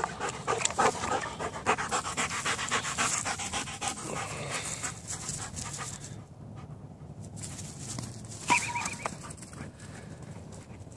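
A Doberman panting rapidly right at the microphone, the panting fading after about five seconds. A short high squeak about eight seconds in.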